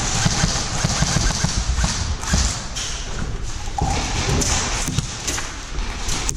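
Quick, irregular thumps and taps, like the footsteps and knocking gear of an airsoft player moving on the field.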